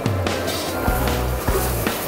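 Background music with a held bass line and a beat.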